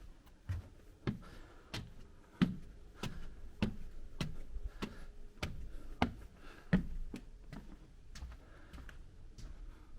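Footsteps of a person walking on a forest trail at a steady pace, about three steps every two seconds, each step a short tap; the steps are softer in the last couple of seconds.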